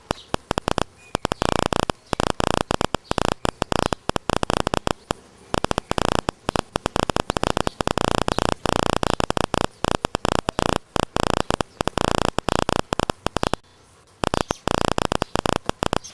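Harsh static hiss that keeps cutting in and out, several irregular breaks a second.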